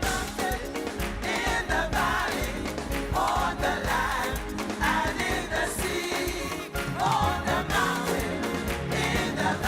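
Gospel worship music with voices singing over a band.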